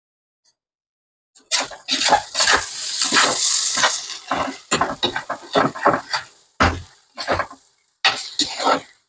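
Metal utensils clattering and scraping against pots and pans, a busy run of knocks and scrapes starting about a second and a half in.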